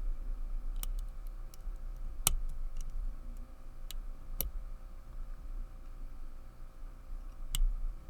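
Lever pick and tension wrench working inside a Walsall 2000 five-lever padlock: a handful of small, sharp metallic clicks at irregular intervals as the levers are nudged.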